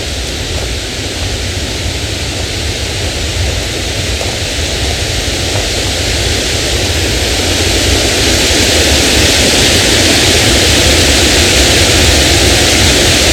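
Rushing water of a waterfall: a loud, steady rush that grows louder over about the first eight seconds, then holds.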